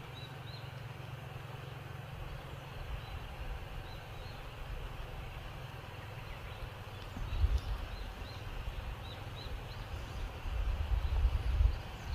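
Wind buffeting the microphone, a low rumble that gusts louder twice in the second half, with short high chirps repeating in the background.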